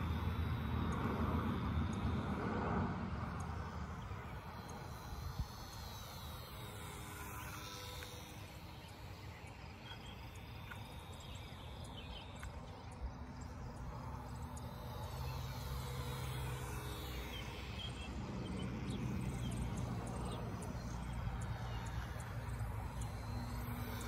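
Micro RC J-3 Cub plane's small electric motor and propeller buzzing in flight over a low rumble of wind. The sound is loudest just after launch, fades in the middle as the plane flies off, and grows again near the end, with its pitch sweeping up and down as the plane passes.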